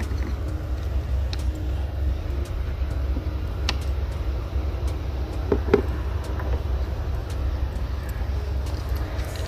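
Steady low hum, with a few light metal clicks and a small clunk a little past halfway as the 12-volt battery terminal clamps are handled and fitted.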